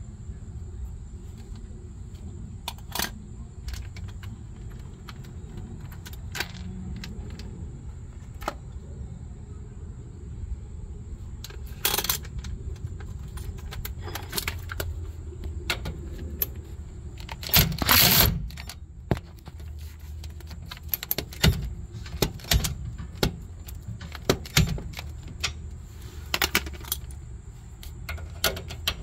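Scattered metallic clinks and knocks of hand tools against a car's rear suspension parts, with a louder clatter a little past the middle and a few sharp clicks after it.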